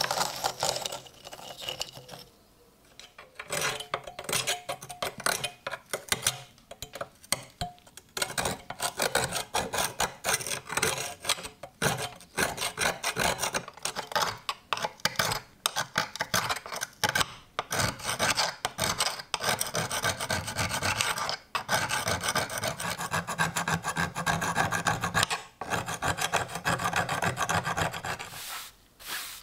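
Steel blade scraping rust off the iron tang of an antique drawknife in rapid back-and-forth strokes. There is a brief scrape at the start, a short pause, then nearly continuous scraping.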